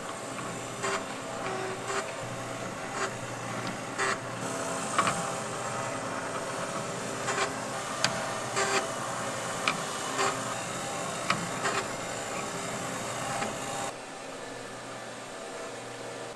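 Factory machinery running with a steady hum, broken by sharp irregular clicks and knocks about once a second. Near the end it drops to a quieter, steadier hum.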